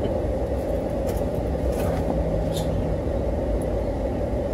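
Car idling, heard from inside the cabin: a steady low rumble, with a few faint clicks.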